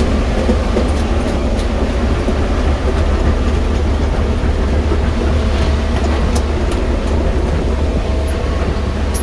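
Diesel engine of a JCB 215 tracked excavator running steadily with a low rumble, with a few faint light clicks over it.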